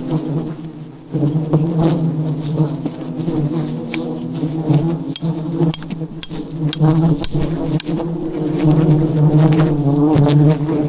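A dense swarm of wild honeybees buzzing loudly around a giant hive, a steady deep hum, with a few sharp clicks and knocks in the middle.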